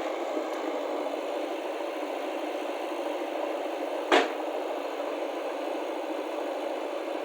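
A motor running steadily, with one sharp knock about four seconds in.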